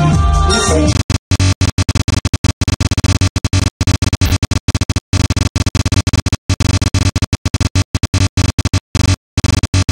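A woman singing into a microphone over live band backing for about a second, then cut to electronic outro music that stutters with rapid, choppy dropouts, in the manner of a scratch or glitch effect.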